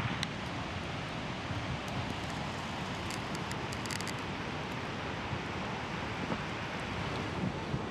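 Steady wind of a snowstorm blowing, with wind noise on the microphone, and a few faint high ticks about three to four seconds in.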